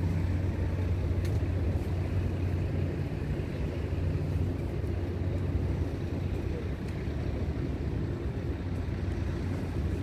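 A steady low engine drone over a rushing haze of wind.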